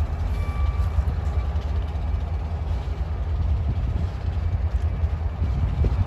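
Low, steady rumble of two EMD diesel road-switcher locomotives, a GP30 rebuild and a GP38, running slowly at the head of a freight train. A vehicle's reversing beeper pulses through the first second or so.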